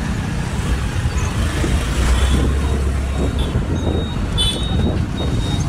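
Dense, slow road traffic with car and motorbike engines running close by. A low engine rumble swells for about a second in the middle, and a short high-pitched beep sounds about four and a half seconds in.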